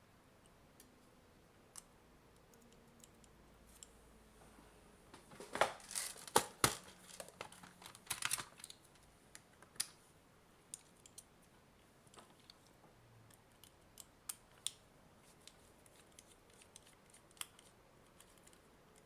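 Hands and tools working at the small plastic parts of a Nintendo Switch AC adapter being taken apart. A run of scraping and crackling comes about six to eight seconds in, then scattered light clicks and ticks.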